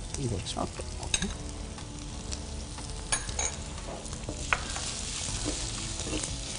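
Grated carrot dropped into a terracotta pot of onions frying in oil, then stirred with a spatula that scrapes and knocks against the pot. The oil sizzles throughout, getting stronger after about five seconds.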